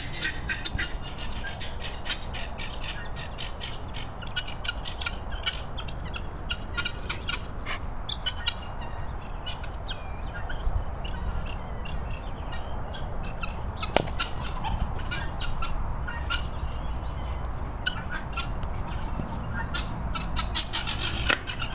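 Farmyard birds calling: many short squawks and chirps throughout, over a steady low rumble. A single sharp click comes about two-thirds of the way through.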